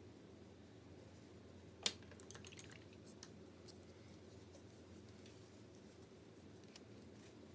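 Small plastic paint containers and art tools being handled on a table: one sharp click about two seconds in, then a quick run of lighter clicks and taps and a few scattered ticks, over faint room hum.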